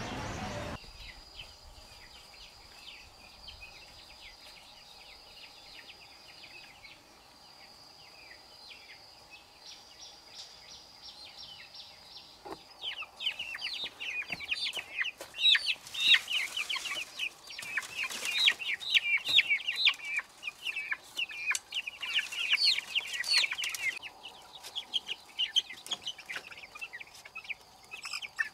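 Chickens calling: many short, high-pitched calls overlapping, sparse at first and growing into a dense, louder chorus from about 13 seconds in.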